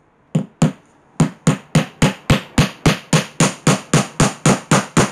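Hammer driving a nail into a thin wooden strip: two blows, then after a short pause a steady run of about three to four blows a second.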